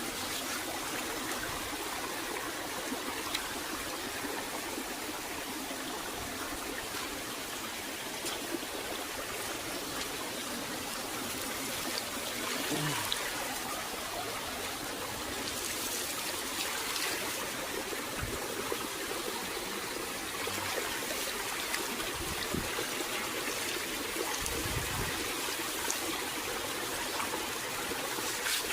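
Running water from a small stream or waterfall trickling steadily, with a few faint knocks in the second half.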